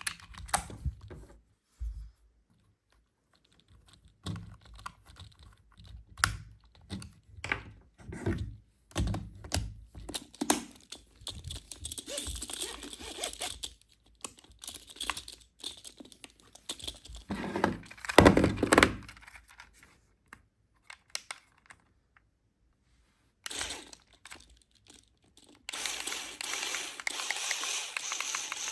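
Plastic toy RC cars and their packaging being handled: light knocks and clicks of hard plastic, with bursts of packaging rustling and tearing. About three seconds before the end, a steady mechanical whirring with fine clicking starts, like a toy car's small motor and plastic gears running.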